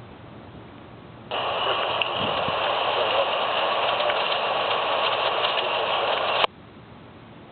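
A radio scanner breaking squelch: a steady burst of hissing static that switches on abruptly, runs for about five seconds and cuts off sharply with a click, with no voice in it.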